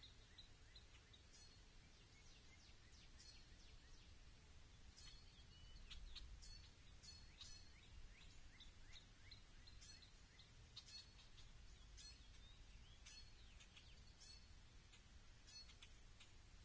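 Faint birdsong: small birds giving short high chirps and quick down-slurred notes, a cluster every second or so, over a low steady rumble.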